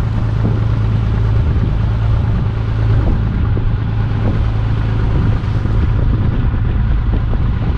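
Fishing boat's engine running with a steady low drone, with a few faint knocks over it.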